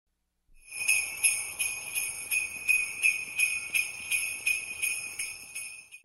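Sleigh bells shaken in a steady rhythm, about three jingles a second, starting about half a second in.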